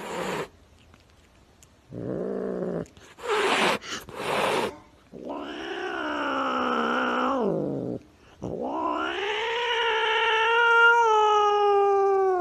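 Domestic orange tabby cat yowling: a few short breathy sounds, then two long drawn-out yowls, the second longer and louder.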